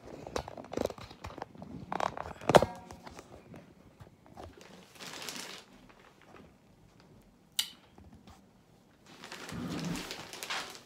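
Handling noise from a phone camera being set up and adjusted: scattered taps, knocks and rustles, the loudest knock about two and a half seconds in, then two longer soft rustles.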